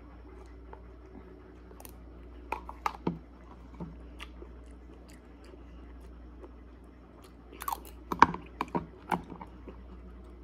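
A metal spoon tapping and scraping in a plastic tub of mango dessert, along with chewing. The sounds come as scattered soft clicks, with a denser run of louder taps about eight seconds in.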